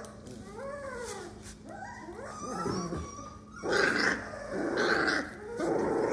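Month-old American pit bull terrier puppies whining in short rising-and-falling cries. From about halfway, louder rough play growls come in bursts about a second apart as a puppy mouths a hand.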